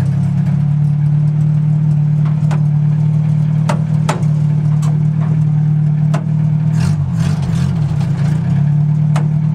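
Crosley wagon's small four-cylinder engine running steadily, heard from inside the cab, with a few sharp clunks and rattles; the engine note wavers briefly about seven seconds in.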